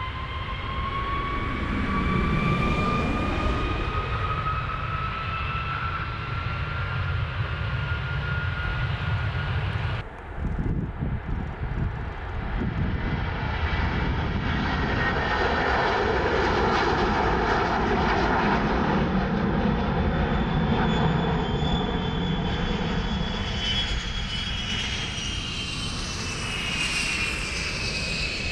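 Aircraft jet engines at takeoff power, their whine rising steadily in pitch for about ten seconds. After a sudden cut, a second aircraft's engines run with a steady rush, and their whine falls in pitch near the end as it goes by.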